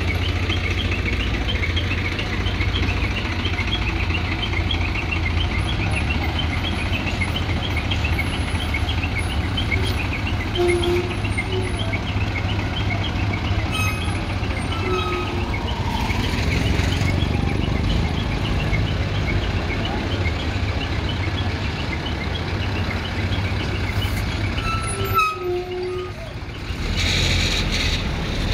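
Escorts Hydra 14 crane's diesel engine running steadily as the crane maneuvers, with many short high-pitched chirps over it through the first half.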